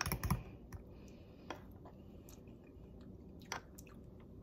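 A metal spoon stirring thick yogurt dip in a bowl, clicking and scraping against the side for about half a second, then only two or three faint taps.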